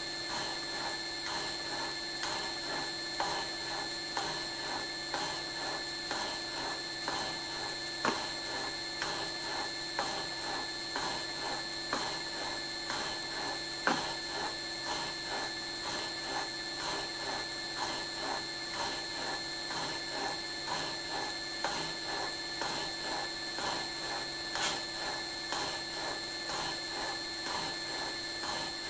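Bridgeport mill's slotting head running, its ram stroking the cutter up and down in an even rhythm over a steady motor hum as it cuts a keyway in a steel coupler. A few sharper knocks, about 8, 14 and 25 seconds in, are the thumps of the cutter taking a chip.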